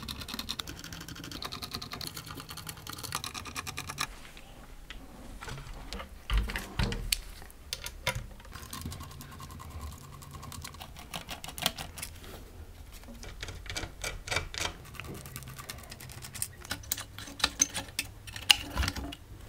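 T8 Torx screwdriver backing small screws out of a car radio's steel chassis and circuit board, with rapid fine clicking while the screws turn. Scattered light clicks and knocks of the metal housing and board being handled follow, with one louder thump about six and a half seconds in.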